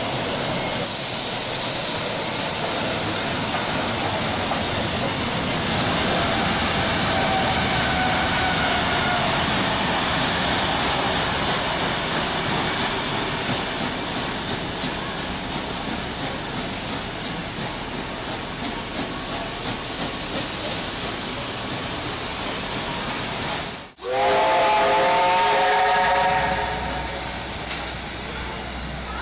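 A steam-hauled heritage train passes, led by NSW locomotive 3642 with 3526 at the rear: a steady loud hiss of steam mixed with the noise of the train rolling over the rails. About four-fifths of the way through, after a break, a steam whistle sounds a chord of several notes for a couple of seconds while the train noise fades.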